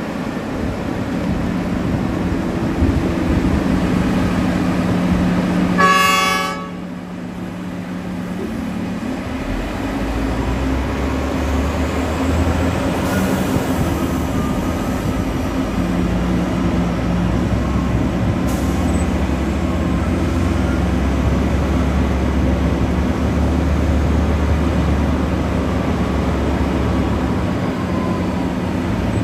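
Heavy diesel mining machinery (a large hydraulic excavator and a haul truck) running steadily with a low drone. About six seconds in there is one short horn blast, and after it the engine note drops for a few seconds, then a deeper drone builds back up.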